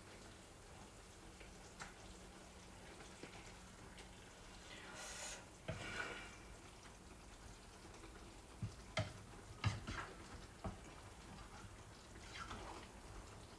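Faint kitchen sounds while cooking: a low steady hum that stops about five seconds in, just after a brief hiss, then a few sharp knocks and clicks of things being handled.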